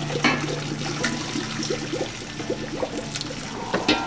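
Hot cooking water pouring off boiled sweet potatoes from a stainless steel pot through a metal colander into a sink, trickling and splashing, with a couple of light knocks.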